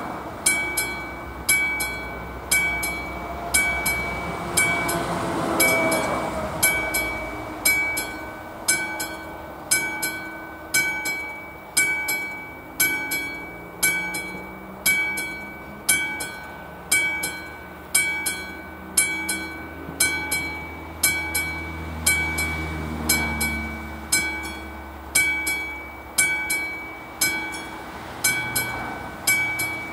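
Level-crossing warning bell, a classic mechanical bell on the AŽD 71 signal, ringing with evenly spaced strokes, about three every two seconds, each stroke ringing on. This is the crossing's warning that a train is approaching. Road vehicles go by underneath, about five seconds in and again past twenty seconds.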